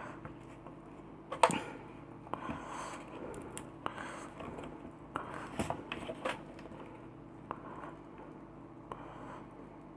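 Hands handling and fitting the plastic parts and tubing of an opened compressor nebulizer: scattered clicks and knocks, the loudest a sharp knock about a second and a half in.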